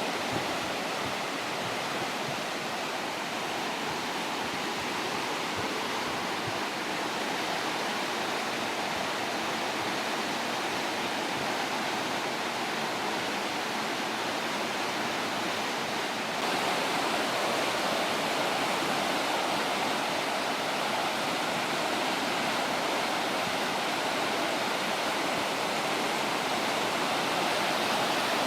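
Flash-flood water rushing down a creek channel: a steady, dense rush of water noise, stepping up louder about sixteen seconds in.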